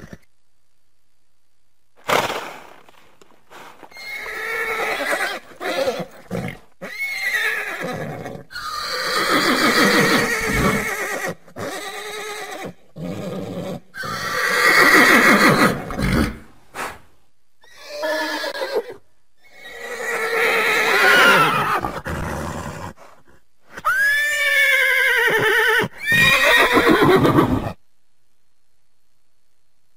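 Horses neighing: a string of loud whinnies with short gaps between them, starting about two seconds in. Several of the calls slide down in pitch as they go.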